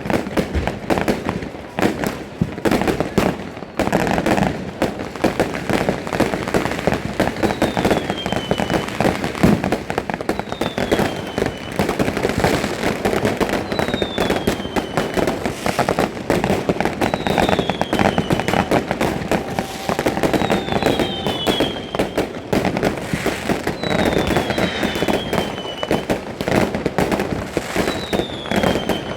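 New Year's Eve fireworks going off without a break: dense crackling and bangs, with short whistles falling in pitch again and again through the second half.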